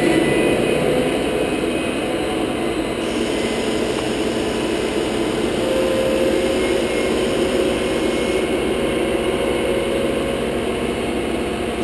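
Diesel engine of a Terex truck-mounted crane running steadily during a lift of a heavy section of tree.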